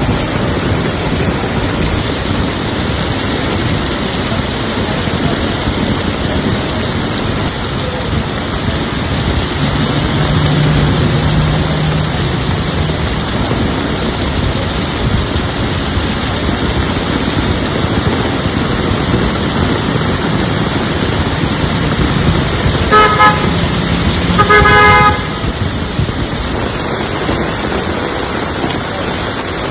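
Steady rush of heavy rain and road traffic on a street, with a vehicle horn honking twice near the end, the second honk longer.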